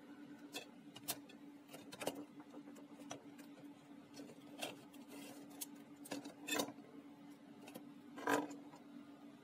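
Small plastic clicks, taps and knocks as the parts of a portable CD player, its laser pickup assembly and circuit board, are handled and fitted back into the case. Two louder knocks come in the second half, over a faint steady hum.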